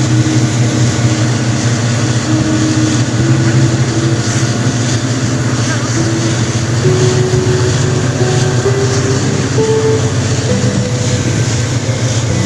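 A boat's engine running steadily: a constant low drone with a wash of noise above it.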